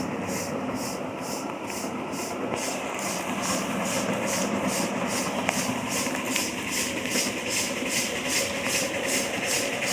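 Live-steam miniature locomotive, an Erie steamer, chuffing steadily as it pulls the train: an even hissing beat of about three to four exhaust puffs a second over the rumble of the cars on the track, growing a little louder after about three seconds.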